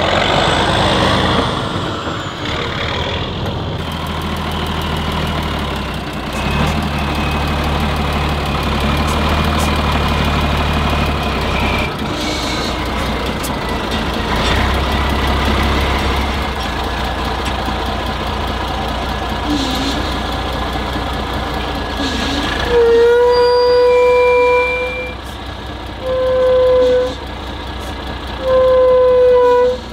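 Heavy off-road trial truck's engine running and revving under load, then three long, loud blasts of an air horn in the last few seconds.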